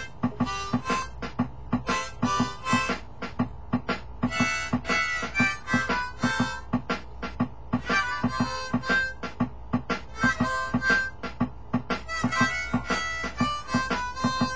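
Blues harmonica played in wailing phrases over a steady backing drum beat.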